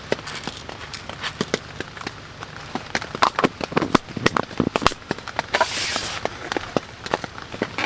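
Close clicks and knocks of a small cooking tin being handled and its lid pressed on, loudest about three to five seconds in, over rain pattering on the tent. A brief rustle near six seconds.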